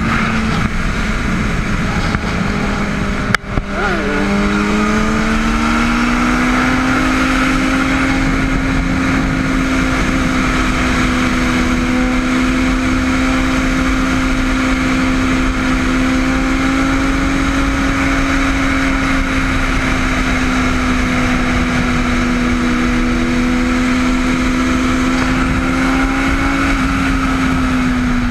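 Kawasaki ZX-6R 636 inline-four motorcycle engine held at steady high revs through a wheelie, with wind noise. About three and a half seconds in there is a sharp click; the pitch then dips, climbs a little and holds steady, easing down near the end.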